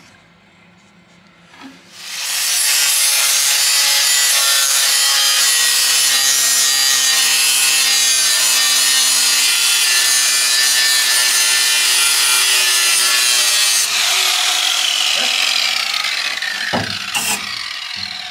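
Angle grinder started about two seconds in and run at full speed, cleaning back metal with a steady harsh grinding over its motor whine. About four seconds before the end it is let off and spins down with a falling whine, followed by a couple of knocks.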